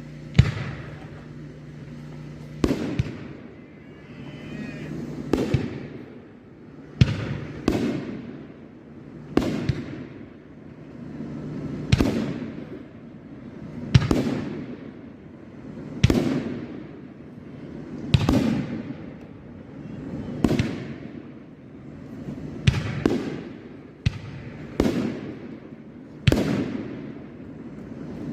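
A 2.5-inch, 36-shot big-bore firework cake firing shot after shot. It gives a sharp report about every two seconds, some shots coming in quick pairs, and each report has a rush of noise around it that fades away.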